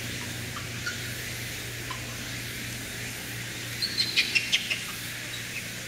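Animal chirps: a few faint short high chirps, then a quick burst of sharp high chirps about four seconds in, over a steady low hum.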